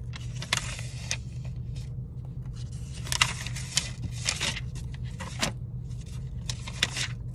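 A deck of reading cards being shuffled and handled: irregular papery rustles, scrapes and a few sharp snaps, the sharpest about three seconds in, over a steady low hum.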